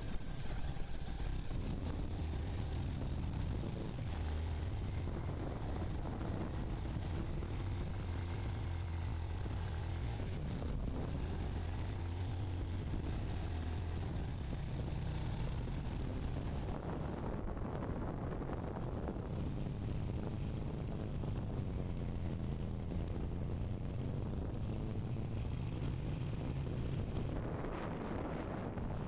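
Motorcycle engine running on the move, its pitch rising and falling a little, under a steady rush of wind and road noise.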